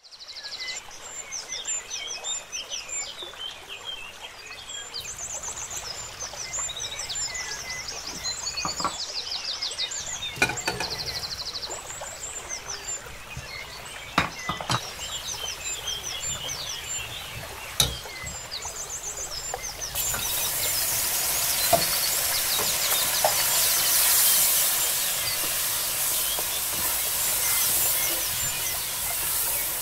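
Small birds chirping and trilling, with a few sharp knocks. About twenty seconds in, a steady sizzle of onions and tomato frying in oil sets in, under the continuing bird chirps.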